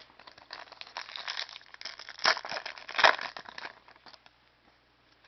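A foil trading-card pack being torn open and crinkled, a dense crackle with its loudest tears about two and three seconds in, then dying away.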